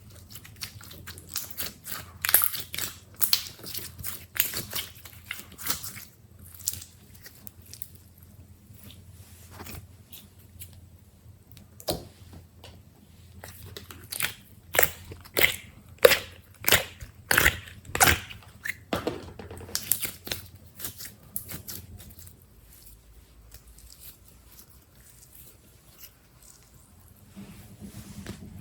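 Slime being squeezed and worked by hand, giving a run of sticky pops and crackles. The pops come thickest a couple of seconds in and again a little past the middle, with quieter squishing between.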